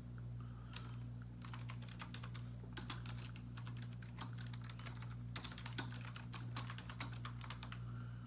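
Typing on a computer keyboard in irregular runs of keystrokes, starting about a second in, with short pauses between runs, over a steady low hum.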